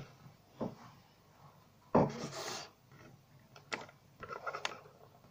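Scattered clicks and knocks of makeup pencils and lipsticks being handled and picked up on a tabletop, with faint rubbing; the loudest knock comes about two seconds in.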